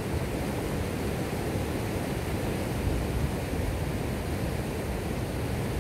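Steady rush of a small mountain river's flowing water.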